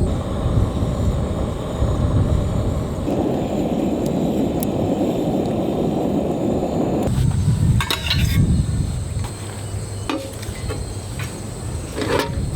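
A steady rush of seaside wind and surf that cuts off suddenly about seven seconds in, followed by a few short clinks and knocks.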